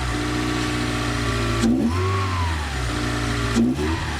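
Toyota MR2 engine idling and blipped twice, the revs rising quickly and falling back, with the induction sound of a newly fitted open cone air filter, which is clearly audible.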